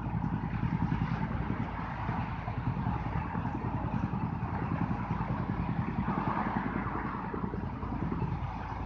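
Steady low engine rumble with a faint steady hum.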